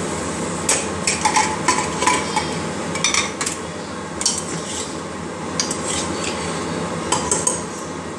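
Steel spoon clinking and scraping against a pressure cooker's weight and lid as the cooker is opened after cooking: several short bursts of metal clatter over a steady background hiss.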